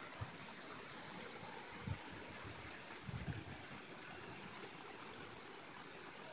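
Water jets of the Turia Fountain splashing and pouring into its stone basin, a steady rushing spatter. Brief low thumps on the microphone come about two and three seconds in.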